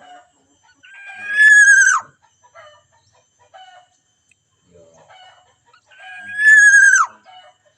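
A rooster crowing twice, each crow about a second long and ending in a sharp drop in pitch, with faint chirps of small birds between the crows.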